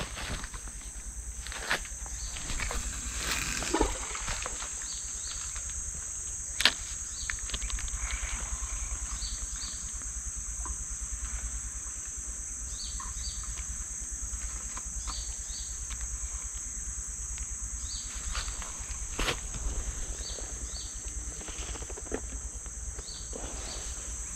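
Steady high-pitched insect drone, with small paired chirps every second or two and a few scattered clicks and rustles.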